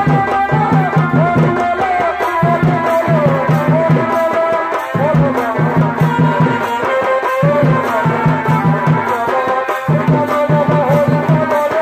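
Purulia Chhau dance music: a wavering shehnai melody over drums beaten in quick runs of strokes with short breaks between them.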